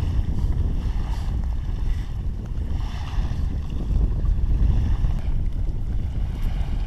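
Wind buffeting the camera microphone: a steady, dense low rumble.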